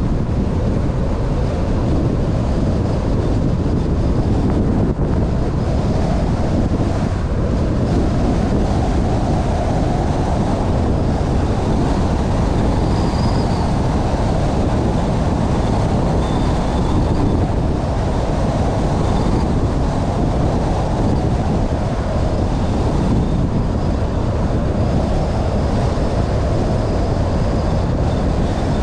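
Steady road and wind noise of a moving car, heaviest in the low rumble and even throughout.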